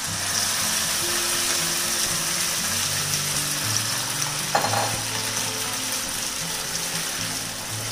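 Moist cooked broken wheat (dalia) sizzling steadily in hot ghee in a kadhai as it is scraped in and stirred with a silicone spatula. A single short knock about halfway through is the loudest moment.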